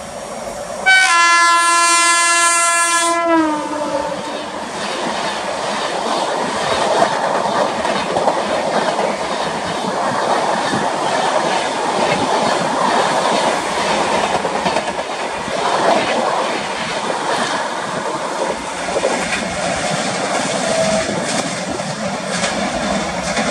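Electric locomotive of the IRCTC Tejas Express sounding a loud horn blast about a second in, its pitch dropping at the end as the engine passes. Then the train's coaches rush past at speed with a steady roar and wheel clatter over the rail joints.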